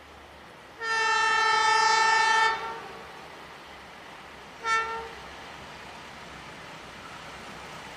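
Diesel locomotive horn: one long blast of about a second and a half, then a short toot about two seconds later, over a steady low rumble as the train approaches.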